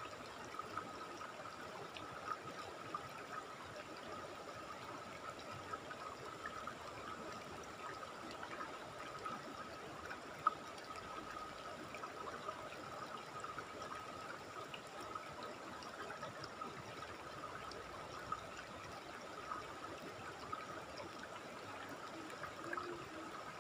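Shallow river running over rocks and riffles: a steady rush of water, with a thin, steady high-pitched note under it. One short sharp tick about ten seconds in.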